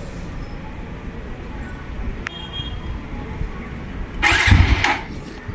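TVS Apache RTR 160 4V's electric starter cranking the single-cylinder engine once, briefly, about four seconds in, without it catching: the fuel tank has run dry. A faint click comes a couple of seconds earlier, over a low steady rumble.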